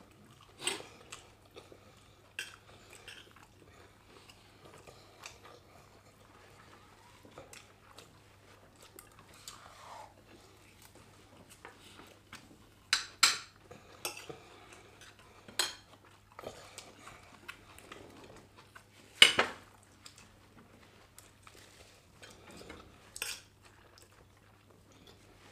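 Metal spoons and forks clinking and scraping on ceramic plates of rice and fish, with soft chewing between. The clinks come sparsely, a handful of sharp ones, the loudest a little past the middle.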